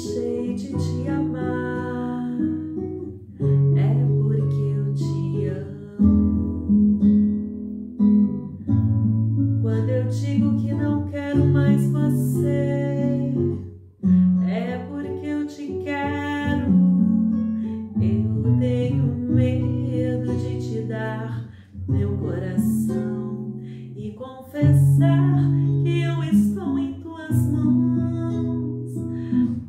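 Acoustic guitar accompaniment, chords changing every two or three seconds over a steady bass, with a woman singing the sertanejo ballad over it.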